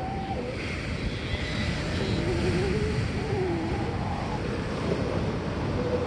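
Ocean surf washing steadily, with sea lions barking in the background: a drawn-out, wavering call about two seconds in and another weaker one near the end.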